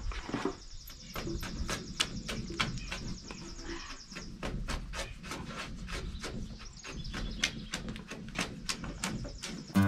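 A quick, irregular run of sharp clicks and knocks, about four or five a second, with a faint high steady whine through the first few seconds.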